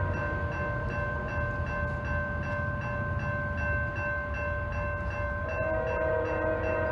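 Railroad grade-crossing bell ringing in a steady repeating rhythm as the crossing signals activate, over the low rumble of an approaching train. The train's multi-note horn sounds again about five and a half seconds in.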